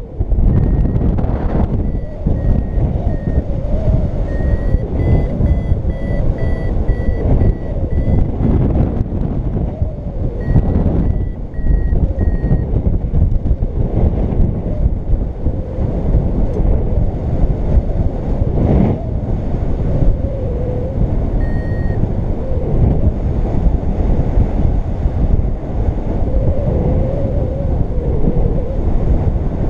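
Wind buffeting the microphone in flight, with a paragliding variometer's short electronic beeps in quick runs through the first dozen seconds and briefly again later, their pitch edging up at times; the beeping signals that the glider is climbing in lift.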